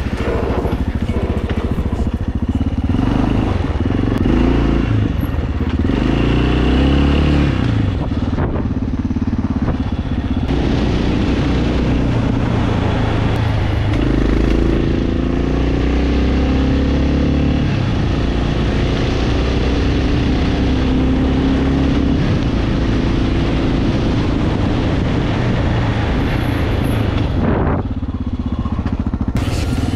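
Yamaha XT 600's single-cylinder four-stroke engine running as the motorcycle is ridden, the revs rising and falling repeatedly with throttle and gear changes.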